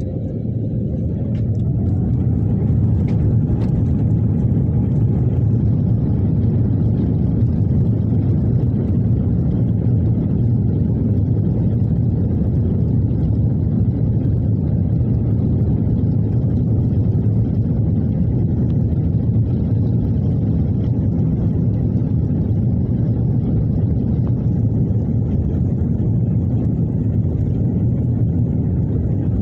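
Rolls-Royce Trent XWB-84 turbofans of an Airbus A350-900, heard from the cabin behind the wing at takeoff. A rising whine ends the spool-up as the sound builds over the first couple of seconds. It then settles into a loud, steady rumble at takeoff thrust.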